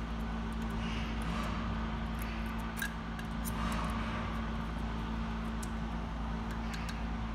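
A few light metallic clicks of hand tools working at an engine's rocker arms during a valve clearance adjustment, over a steady low machine hum.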